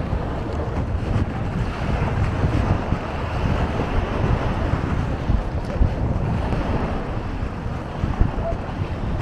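Wind gusting on the microphone, an uneven low rumble over the wash of sea waves on the beach.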